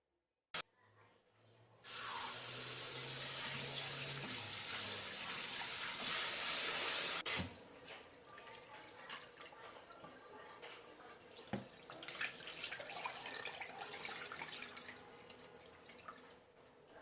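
Kitchen tap running into a sink for about five seconds and then shut off abruptly, followed by quieter irregular splashing and handling in the sink with a couple of knocks.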